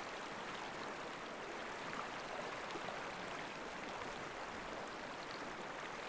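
River rapids rushing steadily and softly: an even wash of flowing water.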